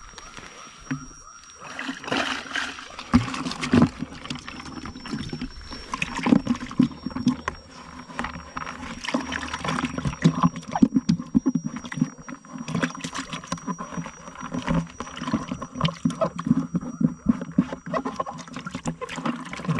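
Water sloshing and splashing irregularly in a plastic pot as it is swished and rinsed out by hand with pond water.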